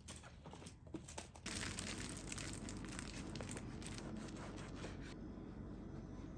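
A few light clicks, then crinkling and rustling from about a second and a half in until near the end, over a steady low hum that starts with it and carries on.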